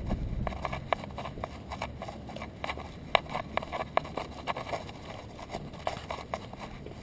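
A small dog trotting on a concrete sidewalk, picked up through a camera strapped to its back: quick, irregular clicks and taps of its steps, a few each second.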